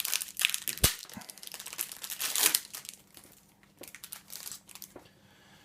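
Wrapper of a Panini trading card packet being torn open and crinkled, a dense crackle with one sharp click about a second in, dying down after about two and a half seconds to faint scattered crinkles.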